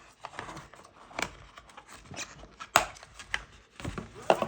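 Hands handling small packaging: irregular rustling and light clicks, with a sharp click a little under three seconds in and a few more near the end.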